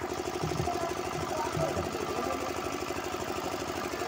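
A small engine running steadily with a fast, even pulsing.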